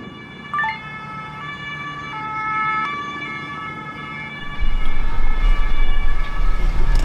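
Steady, siren-like electronic tones held over several overtones, stepping in pitch a few times. About four and a half seconds in, a low vehicle rumble joins and the sound gets louder.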